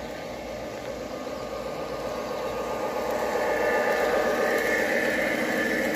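G-scale model train led by two BNSF diesel locomotives running along the garden track, its running sound growing louder as it approaches. A steady higher whine joins about halfway through.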